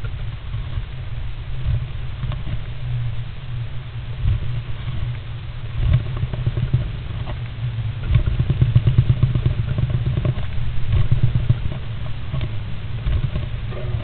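Great spotted woodpecker preening and shifting inside a wooden nest box, right against the box microphone: a low, dense rustling and scraping of feathers and feet on the wood, with a few light knocks. It is busiest and loudest from about eight to twelve seconds in.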